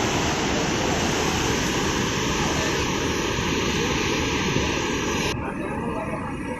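Steady rushing roar of a waterfall, an even hiss without pitch; about five seconds in the upper hiss drops away abruptly, leaving a quieter, lower rush.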